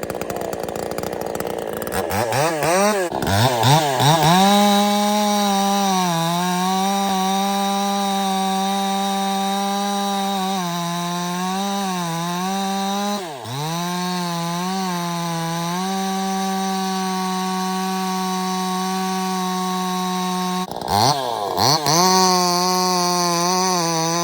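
Budget two-stroke gas chainsaw revving up from a low run with several throttle blips about two seconds in, then held at high revs with a few brief dips in pitch. Near the end it drops off for a moment and is blipped back up to high revs.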